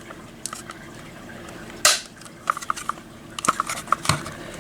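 Plastic clicks and taps as the housing of an Edwards LED strobe is fitted and snapped back together: one sharper snap about two seconds in, then a run of small clicks.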